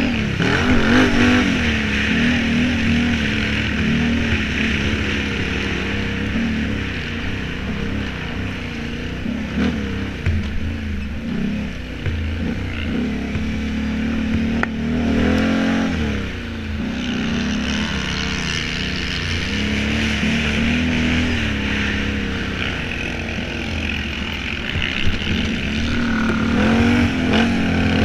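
Quad bike (ATV) engine heard from on board, running hard under racing load; its pitch drops and climbs again several times as the rider throttles off and back on.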